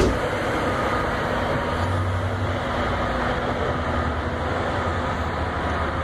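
Diesel engines of a row of large Caterpillar mining haul trucks running as a steady low drone over a noisy haze, starting with a short knock.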